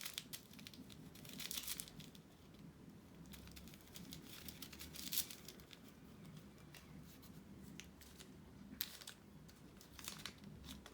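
Small plastic packets of diamond-painting drills being crinkled and torn open by hand, in short scattered rustles with light clicks.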